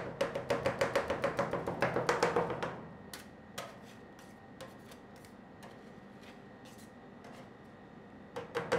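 Two metal spatulas chopping mango into ice cream mixture on a steel cold plate: rapid, even clicks of about eight a second. The chopping stops about three seconds in, leaving a few scattered taps and scrapes, and then starts again near the end.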